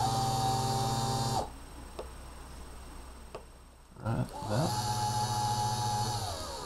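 DC geared motor driven by a Sabertooth motor driver, whining: it runs for about a second and a half and cuts off sharply, then after a pause spins up again with a rising pitch, runs steadily and drops slightly in pitch near the end. The stops and restarts are a glitch in the joystick control that the builder cannot yet explain.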